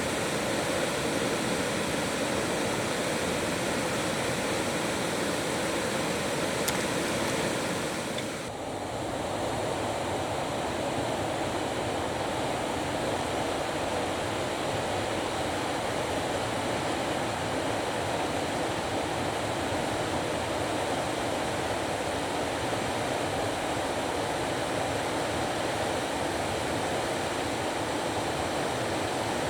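River Garry rushing over falls and rapids, a steady roar of water, with a brief drop in level about eight and a half seconds in.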